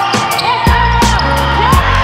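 Background music: an instrumental beat with regular drum hits, a steady bass line and a gliding melodic line.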